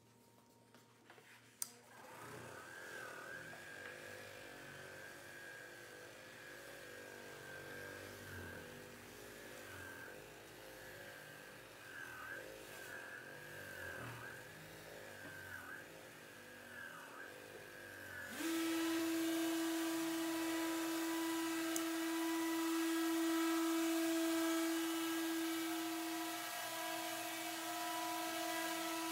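Electric random-orbital sander/polisher running on a wood-and-epoxy tabletop, its motor whine wavering as it is pressed and moved. About 18 seconds in it steps up to a louder, steadier high whine.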